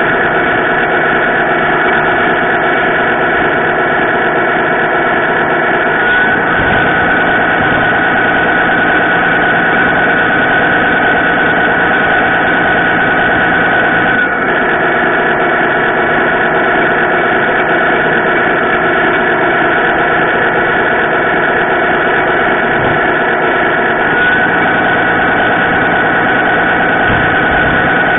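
Radio-controlled model truck running, heard from a camera mounted on it: a steady, engine-like mechanical drone whose pitch steps up slightly about six seconds in and again near the end.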